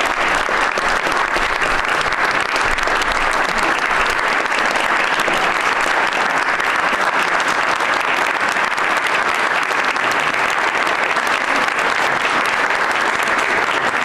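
Sustained applause from a large audience, many hands clapping in a dense, steady patter.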